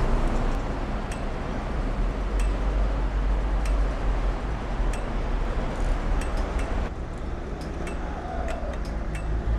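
Street traffic: a steady low rumble and noise of cars on the road, with scattered light ticks and clinks.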